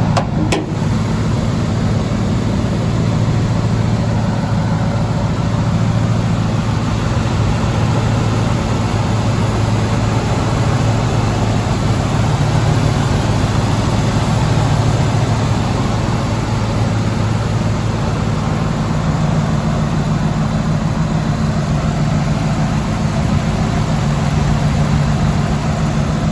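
Ford SVT Lightning pickup's V8 engine idling steadily through a Bassani exhaust, with one short knock just after the start.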